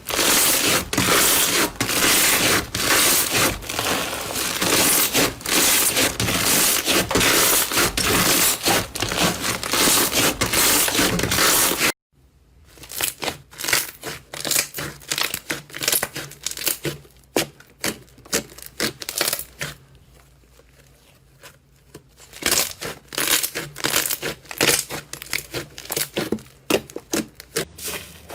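Slime being squeezed and stretched by hand, with a dense, loud crackling and crinkling. After an abrupt cut about twelve seconds in, quieter scattered clicks and pops follow, fading almost away for a couple of seconds in the middle before picking up again.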